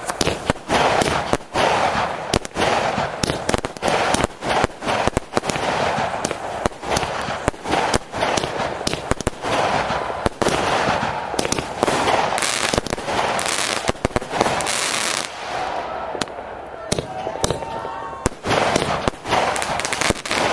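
Fireworks display: aerial shells bursting in rapid, nearly continuous bangs and crackles, easing briefly about three quarters of the way through before picking up again.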